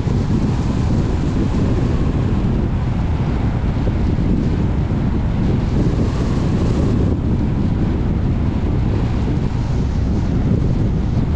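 Steady low rumble of a car driving, road and wind noise without a break.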